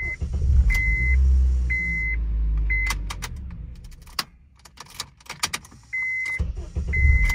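2008 Honda Accord engine being started with the key: it catches and runs just after the start, dies away, and starts again near the end. Key clicks and a dashboard warning chime beeping about once a second go with it. The car has intermittent starting trouble that the mechanic ties to a crank position sensor fault (code P0339).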